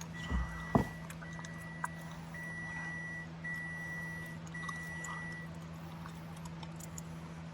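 Electronic warning beeps, a steady high tone repeating about once a second, each beep nearly a second long, stopping a little over halfway through, over a steady low hum. Two short knocks come in the first second.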